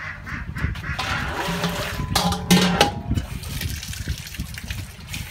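Water running from an outdoor tap into a steel basin, with a louder splashing burst about two seconds in. A few short animal calls sound over it near the middle.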